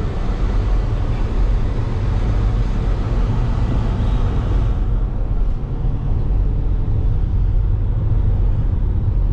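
Storm wind buffeting the microphone, a loud steady rumble with a hiss on top; the hiss thins out about five seconds in.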